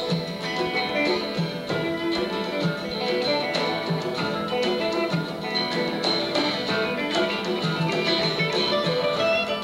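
Live acoustic guitar playing, quick picked notes with an electric guitar alongside, in an instrumental passage without singing.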